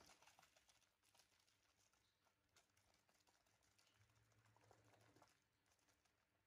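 Near silence: room tone with a few faint small clicks and taps.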